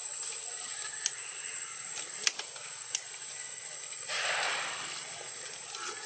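Steady background hiss with a thin, high-pitched whine running through it. A few sharp clicks are scattered through it, and a short burst of rushing noise comes about four seconds in.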